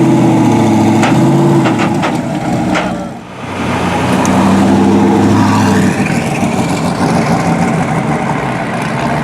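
SSC Ultimate Aero's twin-turbo V8 running at low revs. Its note drops away and briefly dips about three seconds in, then comes back and runs on steadily, with a few clicks in the first three seconds.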